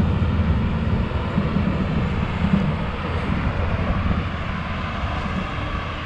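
Skid-steer loader's engine running steadily, working nearby.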